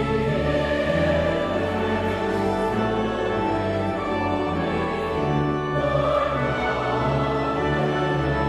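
Church choir singing with instrumental accompaniment, in long held chords.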